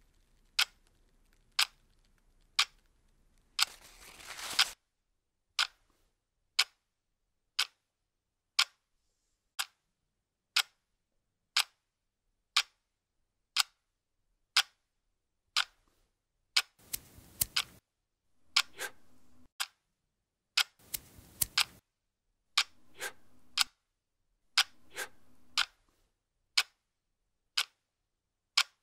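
A clock ticking about once a second, evenly. In the second half, several short bursts of noise, a few with a low hum, fall between the ticks.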